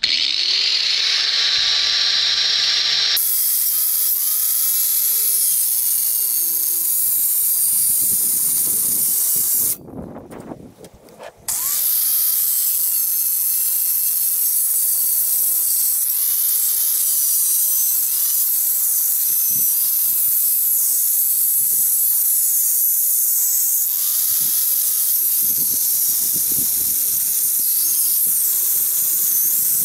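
Angle grinder cutting through a metal davit tube, a loud steady high grinding whine. The motor spins up at the start, stops about ten seconds in, and starts again a second and a half later.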